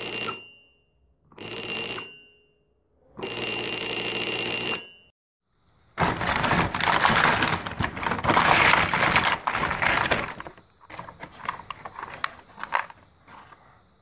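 Homemade electric bell: a small 5 V DC motor swings its striker arm against a small metal dish, ringing in three short buzzing bursts as the push button is pressed, the last the longest. Then a louder stretch of a paper bag rustling and plastic toy building pieces clattering as a hand digs through them, followed by scattered clicks of plastic parts being handled.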